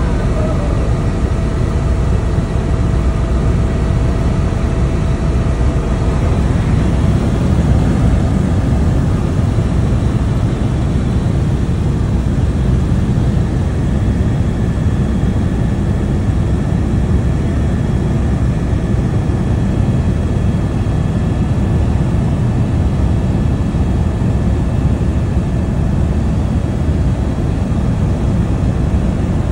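Helicopter in flight heard from inside the cabin: a loud, steady engine and rotor rumble with a faint, steady whine over it.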